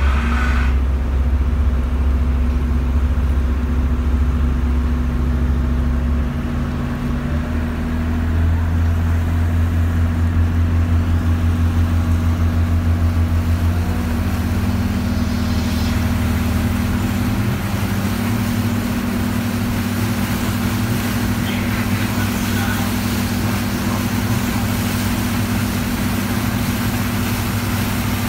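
Boat engine running under way, a steady low drone that shifts slightly in pitch a few times.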